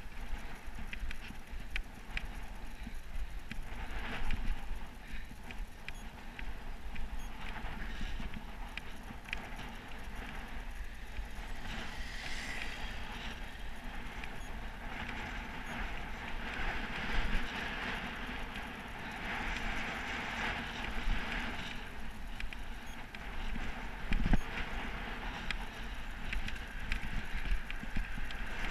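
Wind buffeting the microphone of a helmet-mounted GoPro on a moving road bike, giving a steady rushing noise with a low rumble, over tyre noise on tarmac, with a few short knocks.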